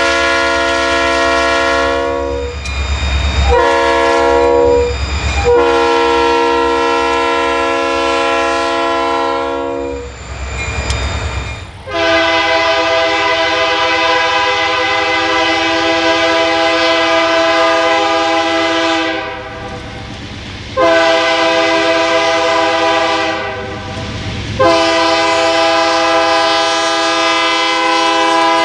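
Real locomotive multi-chime air horn sounding a series of long and short blasts, each a chord of several notes. About twelve seconds in a second horn with a different chord takes over for three more blasts. A low engine rumble runs under the first set.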